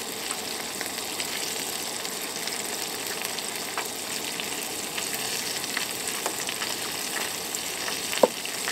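Breaded squirrel pieces deep-frying in hot oil: a steady sizzle with scattered small pops and crackles. A brief sharp squeak near the end.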